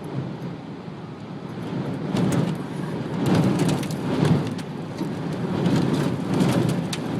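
Strong gusting wind buffeting the microphone in a low rumble that swells and eases in waves, loudest about halfway through, with scattered sharp crackles.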